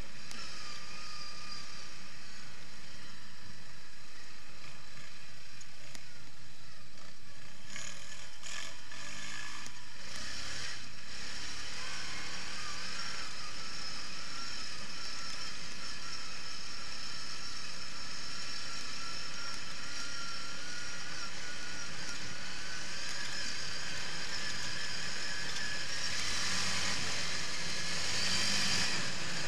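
Quad bike (ATV) engine running under way on a dirt track, its whine wavering with the throttle, then rising and getting louder over the last few seconds.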